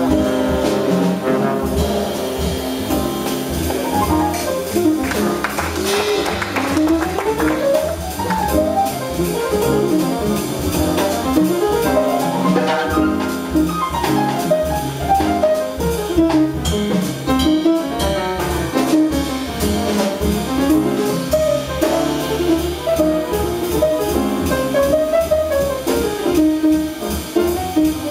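Live jazz sextet playing: a horn spins out quick melodic runs that climb and fall over piano, upright bass and a drum kit, with the trombone's brassy tone prominent.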